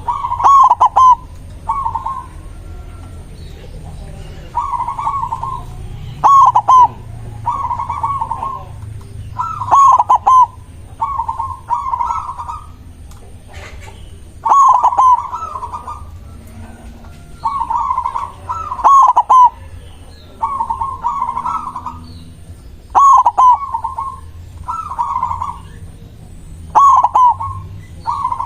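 Zebra dove (perkutut) cooing: loud, stuttering, trilled coo phrases repeat every one to two seconds, over a low steady rumble.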